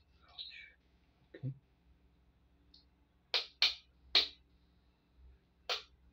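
Four sharp clicks of hard parts knocking together while a hand-wound coil and a magnet are handled: three in quick succession about halfway through and one near the end, with a duller knock earlier.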